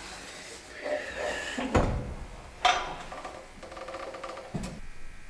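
Steel bracket stock being set and clamped in a hand-operated box and pan brake: metal scraping and rattling with three sharp clunks spread through.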